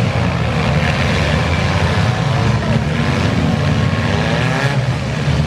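A motor vehicle running steadily: a constant low engine and road drone.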